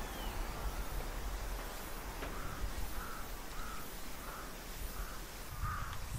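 A crow cawing over and over, a string of short, harsh caws about one every two-thirds of a second, starting about two seconds in.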